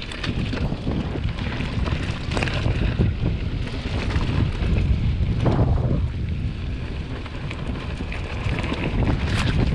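Wind buffeting the microphone of a camera riding along on a fast mountain bike descent, over a steady rumble of tyres on a rough dirt trail. Scattered knocks and rattles come from the bike jolting over bumps.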